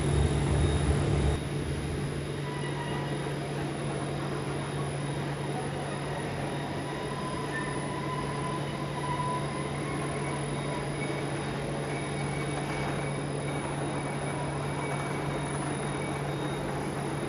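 Steady low hum of a powered-up Zayer Arion 3000 gantry CNC milling machine, with faint high-pitched whines over it. A heavier low rumble drops away about a second and a half in.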